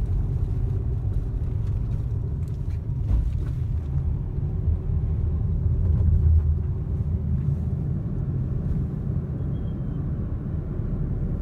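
Steady low rumble of a vehicle on the move, with no speech over it.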